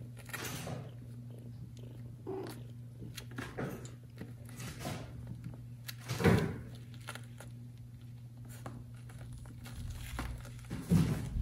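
A cat purring steadily as a kitten nurses against it, with soft breathy snuffling noises every second or two and two louder ones, about six seconds in and near the end.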